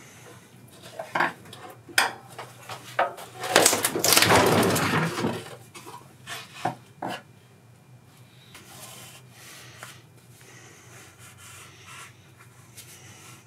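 Scattered knocks and clicks of hand tools and metal parts being handled, with a loud rough scraping noise lasting about two seconds around four seconds in, then only faint background.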